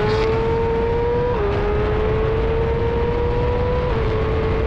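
BMW M 1000 RR sport bike's inline-four with an aftermarket exhaust, heard onboard under hard acceleration: the engine note climbs steadily and drops abruptly twice as it shifts up. Heavy wind rumble on the bike-mounted microphone runs underneath.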